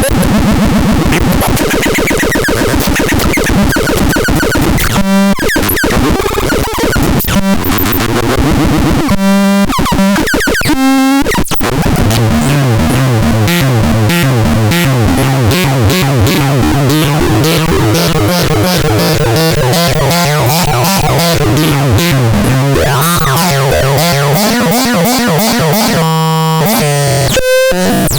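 Harsh electronic synthesizer noise music: dense, glitchy textures with rapid clicks, and a pulsing bass line that steps up and down in pitch from about twelve seconds in.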